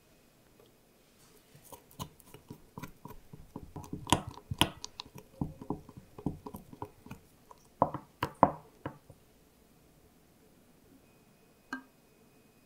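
Wooden stirring stick tapping and clinking against the sides of a glass measuring cup while food colouring is stirred into sugar and corn-syrup syrup: a few seconds of irregular taps, then one short knock near the end.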